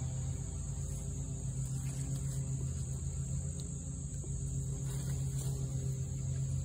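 Steady high-pitched chirring of crickets or similar insects, over a steady low hum.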